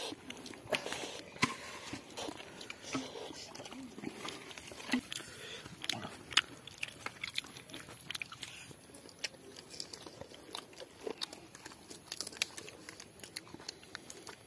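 People eating roasted chicken by hand at close range: chewing and crunching, with irregular small clicks and crackles as the meat is pulled apart.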